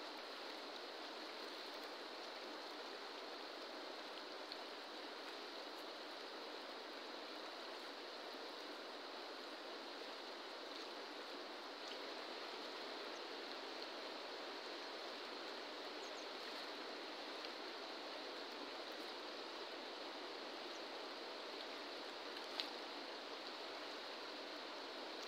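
Steady rushing of a fast-flowing river, with one short click near the end.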